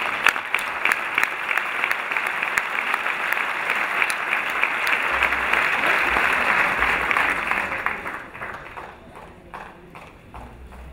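Audience applauding, a dense patter of clapping that dies away about eight seconds in, leaving a few scattered claps.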